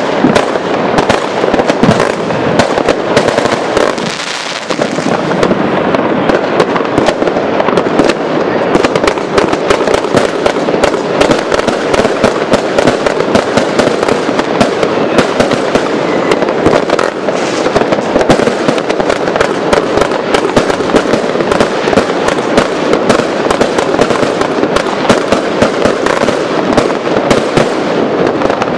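Vuurwerkmania Color Explosions compound firework cake firing: a rapid, near-continuous stream of shots and aerial bursts, with a brief lull about four seconds in.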